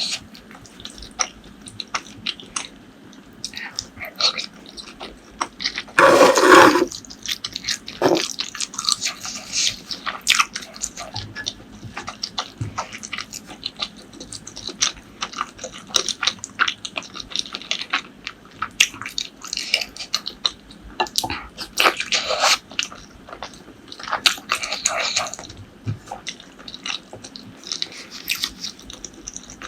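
Close-miked eating: a steady run of chewing, biting and wet mouth clicks, with one louder, longer noisy burst about six seconds in.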